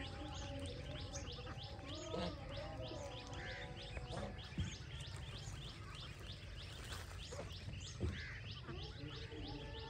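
Muscovy ducklings peeping: a steady run of short, falling high chirps, about four or five a second, with a few louder peeps among them. There are two brief low thumps, one about halfway through and one near the end.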